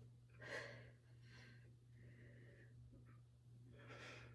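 Near silence: faint breaths from a woman working through a core exercise, a few soft puffs about a second apart, over a low steady hum.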